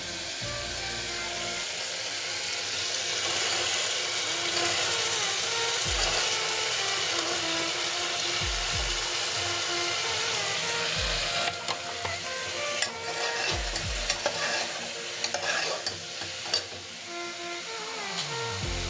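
Onion and tomato sizzling in hot oil in an aluminium pressure cooker, with diced beetroot added and stirred in. A steel ladle scrapes and clinks against the pot in the second half, with a few dull knocks.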